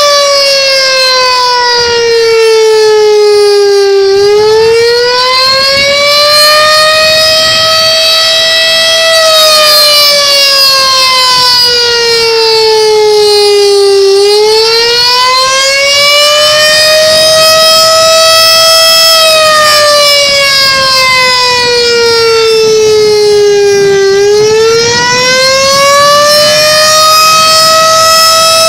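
Federal Signal STH10 electromechanical outdoor warning siren sounding loud and close, a wail whose pitch slides slowly down and back up about once every ten seconds.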